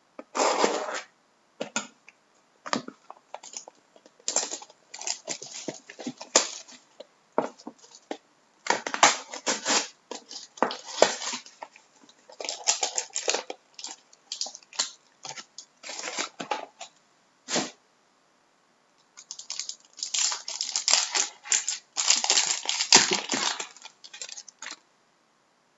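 Wrapping on a sealed box of hockey trading cards being torn open and crinkled by hand, in irregular rustling bursts with a short pause about two-thirds of the way through.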